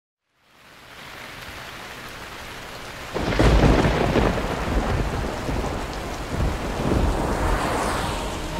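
Steady rain hiss fading in, then a loud, deep roll of thunder about three seconds in and a second, weaker rumble near the end.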